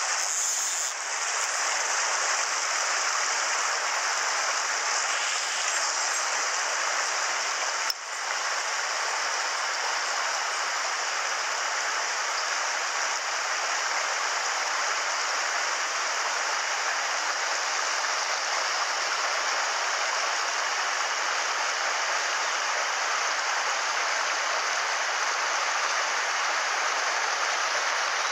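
Mountain headwater stream running over boulders and small cascades: a steady rush of water.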